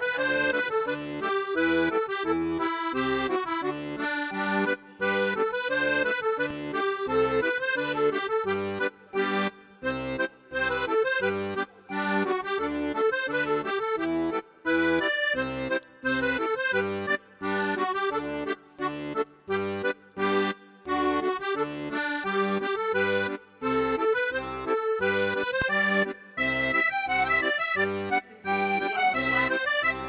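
Instrumental background music with sustained chords over a steady, regular bass beat.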